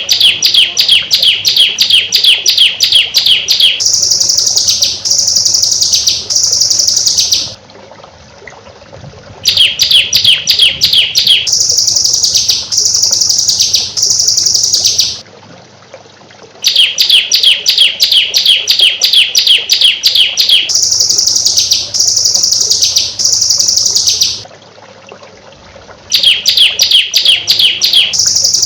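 Looped songbird tutor recording ('masteran'): a burst of rapid, sharp chirps, about seven a second, for a few seconds, then three high phrases that each sweep downward, then a short pause. The same cycle repeats identically about every eight and a half seconds.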